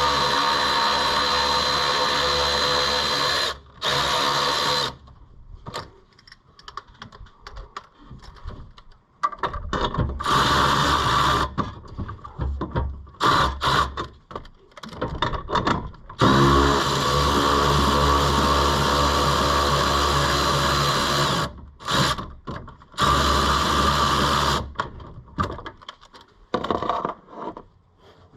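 Cordless power tool spinning an 11 mm socket to loosen the T-bolt clamps on turbo intercooler pipes, in several steady runs of a few seconds each, the longest about halfway through. Between the runs come clanks and knocks of tools and pipes being handled.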